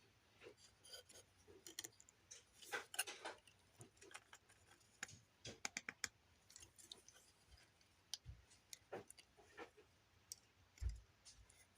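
Faint, scattered clicks and taps of hard plastic parts being handled: a 3D-printed thruster being pushed into the slots of a Transformers action figure.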